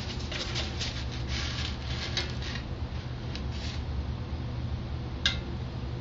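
Foam block being pushed through a tensioned wire cutter: scratchy crackling in the first two and a half seconds over a steady low hum, then a single sharp snap about five seconds in as the wire breaks free of a glue line.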